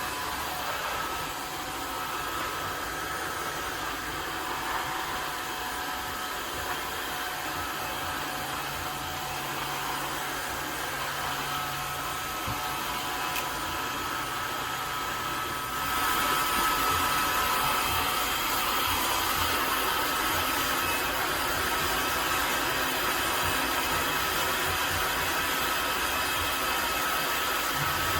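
Cordless wet-dry floor vacuum's motor running with a steady whir and a faint whine, getting louder and brighter a little past halfway through.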